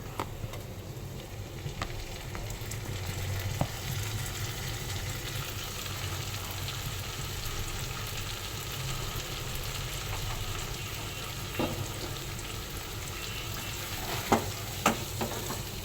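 Onions and grated tomato frying in mustard oil in a kadai, a steady sizzle, with a spatula tapping and scraping against the pan a few times, mostly near the end.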